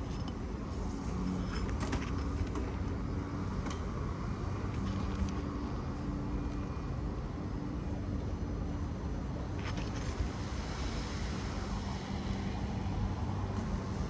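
Steady low rumble of a running motor-vehicle engine, with a few light clicks, one clearer about ten seconds in.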